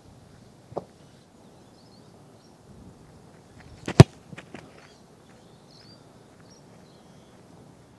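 A single sharp thud of a boot striking an Australian rules football on a long set-shot kick about halfway through, with a few quick footsteps on grass just before and after it. A fainter knock about a second in, and faint bird chirps in the background.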